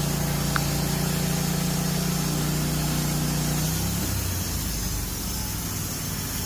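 Sawmill engine idling with a steady hum, which drops off and thins out about four seconds in. A short high squeak comes about half a second in.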